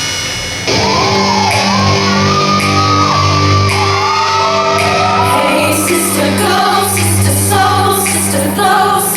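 Loud music mix: one track cuts abruptly to another about a second in, a song with a sliding sung vocal over sustained bass notes, with shouting.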